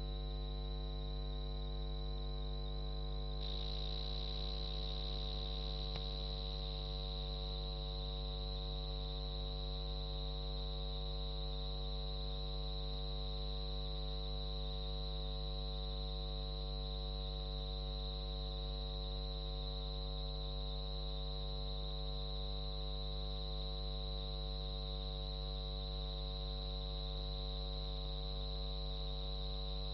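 Steady electrical hum with many overtones and a thin, high-pitched whine above it, unchanging throughout: no race, crowd or commentary sound is heard.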